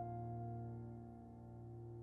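Closing background music: a held piano or keyboard chord slowly dying away.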